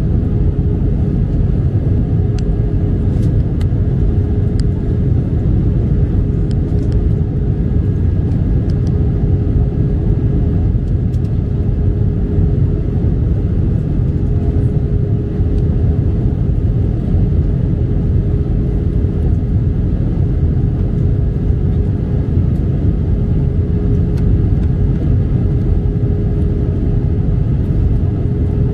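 Steady cabin noise inside an Airbus A320 in flight: a loud, even rumble of engines and airflow with a constant hum running through it, and a few faint ticks about 2 to 9 seconds in.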